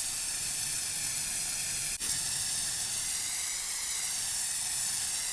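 A steady, high hiss that cuts off abruptly near the end, with a brief dip about two seconds in.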